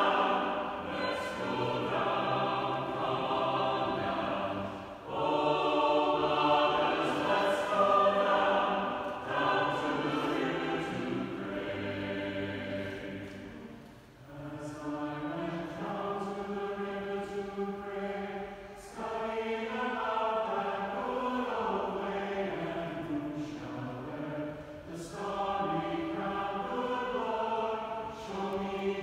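Church choir singing in phrases, with brief breaks between them.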